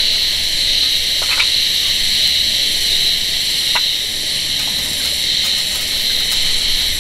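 Bone-in sausages sizzling on a grill grate over a wood fire, a steady high hiss with a couple of short pops from the burning wood.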